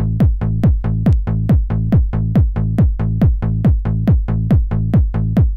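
Opening of a trance track: a drum-machine kick on every beat, a little over two beats a second, over a held low synth bass chord.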